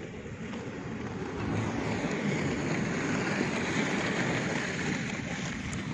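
Inline skate wheels rolling on rough asphalt as a group of skaters passes, a steady rumble that swells as they near and eases after.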